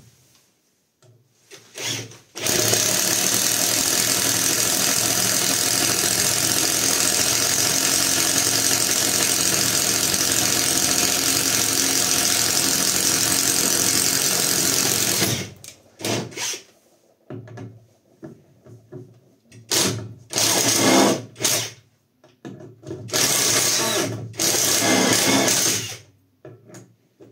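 Catpower 4226 cordless impact driver boring into an old timber beam with a 20 mm spade bit. It runs steadily under load for about thirteen seconds, then comes in several shorter bursts near the end as the bit is worked in the hole.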